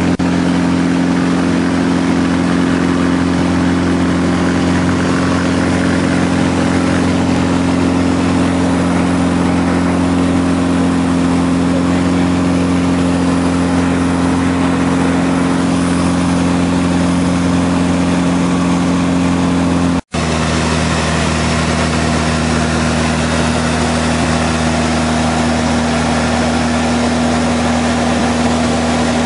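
Van's RV-6 light airplane's piston engine and propeller droning steadily at cruise, heard inside the cockpit. About two-thirds of the way through the sound drops out for an instant, and the drone then carries on a little lower in pitch.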